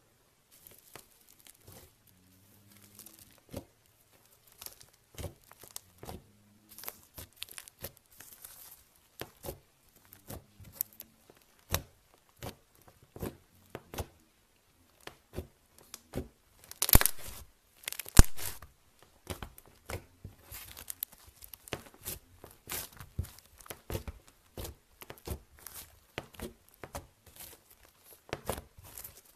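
Fingers pressing and kneading foam-bead slime (floam), the beads crackling with many sharp, irregular clicks and pops, loudest in a dense cluster a little past the middle.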